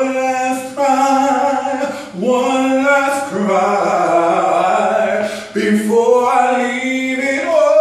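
A man singing solo, unaccompanied, holding long notes that slide in pitch, with short breaths between phrases.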